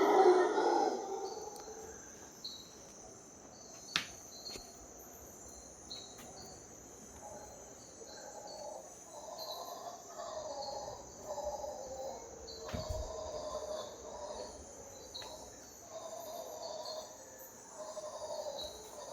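Mantled howler monkeys calling at dawn over a steady high insect drone. A close call fades out in the first second, then more distant calls rise and fall in waves, with short bird chirps repeating throughout.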